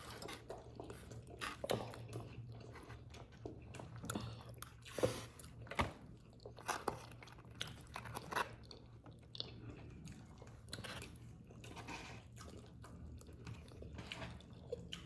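Close-up chewing and biting: wet smacks and irregular clicks of someone eating goat meat with rice and beans, over a faint steady low hum.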